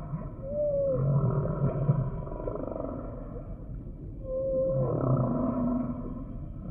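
Humpback whale song: low calls with short, higher pitched notes, coming in two phrases, the first about a second in and the second just after four seconds, the second ending with a note that slides down.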